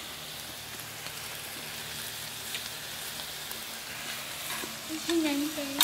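Beef and vegetables sizzling steadily on a hot barbecue griddle plate, with a short voice sounding near the end.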